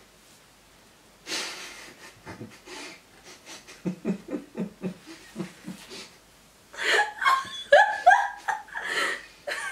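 A woman laughing hard and helplessly behind her hand. It starts as a breathy burst, turns into a run of short rhythmic laugh pulses, and breaks into louder, higher-pitched laughs near the end.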